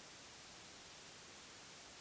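Near silence: a faint steady hiss of room tone and recording noise, with no distinct sound events.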